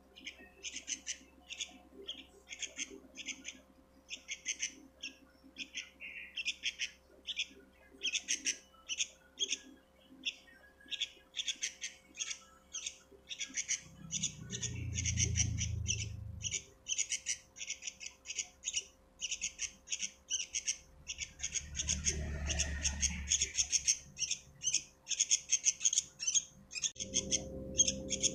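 Sooty-headed bulbul chicks chirping, short high calls repeated several times a second without a break. A faint steady hum lies underneath, and two low rumbles come in around the middle.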